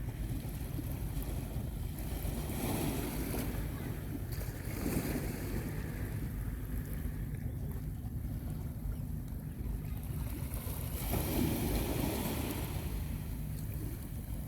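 Calm sea waves washing onto the beach, swelling and falling back about three times, with a steady low rumble of wind buffeting the microphone.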